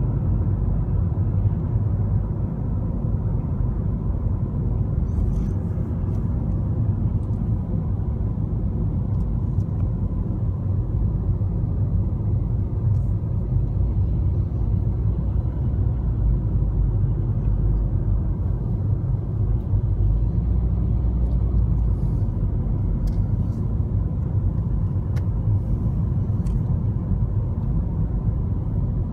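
A car driving along a paved road, heard from inside: a steady low rumble of engine and tyre noise at an even pace.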